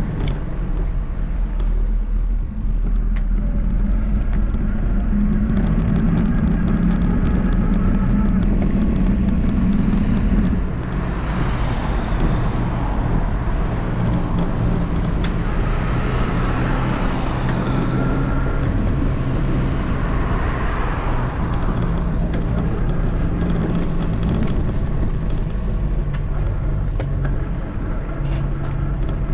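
Motor vehicle engine running with road and traffic noise: a steady low engine hum, with a louder rush of noise swelling up and dying away through the middle stretch.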